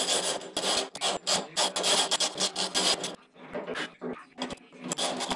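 Small hand ratchet being worked back and forth to tighten fasteners on a steel boot lid, a run of quick rasping strokes about three a second that pauses briefly and starts again near the end.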